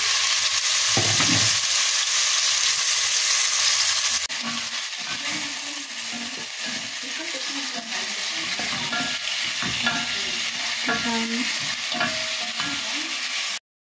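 Beef pieces sizzling in hot oil in a frying pan while being stirred and turned with a spatula. The sizzle is loudest for about the first four seconds, then a little quieter, and cuts out briefly just before the end.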